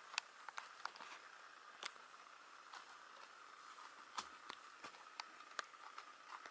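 Faint scattered clicks and light taps, irregular, over a faint steady hum.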